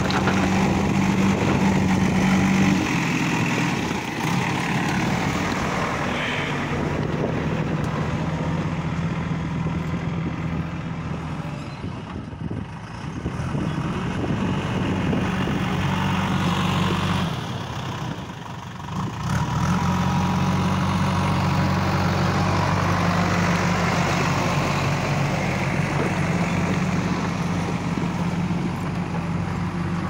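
A JCB 3DX backhoe loader's Kirloskar diesel engine runs steadily under load as the front bucket pushes and spreads loose crushed stone, with a rough grinding of rock over the engine note. The sound dips twice briefly in the middle, then picks back up.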